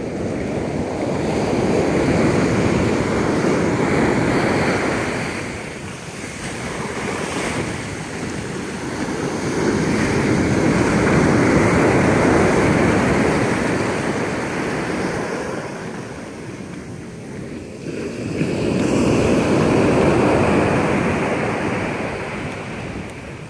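Ocean surf breaking and washing up the beach, swelling and fading three times as successive waves roll in.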